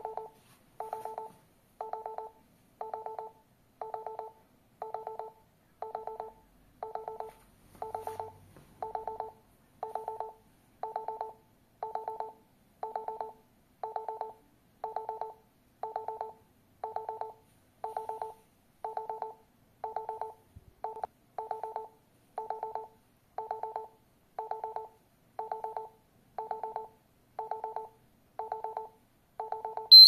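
STANIOT home alarm control panel sounding its entry-delay countdown: a quick cluster of short electronic beeps once a second, warning that the system must be disarmed before the alarm goes off.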